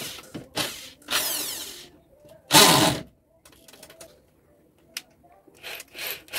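Short bursts of an electric hammer drill being run, each under a second, the loudest about two and a half seconds in.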